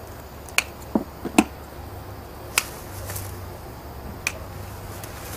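About six sharp clicks and knocks, spread irregularly and loudest about a second and a half in, from hands working at coax cable fittings and clips at a cable box. A low steady hum runs behind them.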